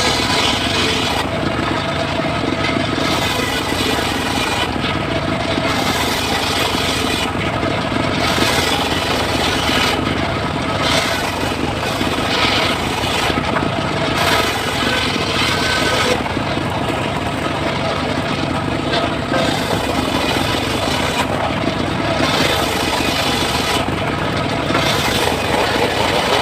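Circular saw running steadily while cutting mahogany, a steady motor hum under a cutting hiss that swells and drops back every two to three seconds as pieces go through.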